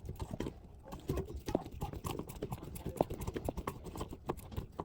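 Irregular clicks, taps and knocks of hand-tool work on the toilet's boxing panels and their fixings, with a stubby screwdriver in use.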